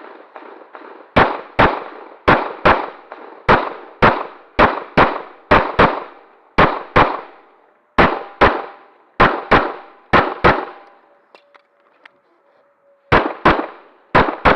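A rapid string of pistol shots, about two dozen, mostly fired in quick pairs. The shooting pauses for about two and a half seconds near the end, then a few more pairs follow.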